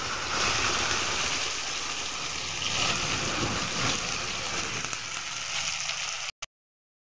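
Hot oil in a kadai sizzling steadily as whole cumin, dried red chilli and freshly added green chillies fry in it. It stops abruptly near the end.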